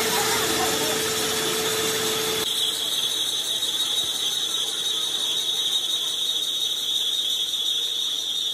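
Metal lathe turning a cast-iron engine cylinder sleeve, the cutting tool giving a steady high-pitched squeal over the running machine. About two and a half seconds in, the sound changes abruptly: a lower tone drops out and the squeal grows stronger.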